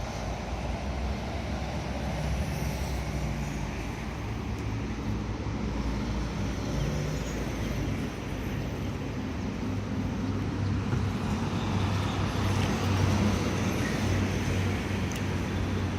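A motor running steadily: a low engine hum over a constant wash of noise, growing slightly louder in the second half.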